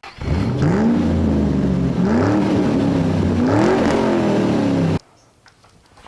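A motor vehicle engine revving, its pitch climbing and falling back about three times, then cutting off abruptly about five seconds in.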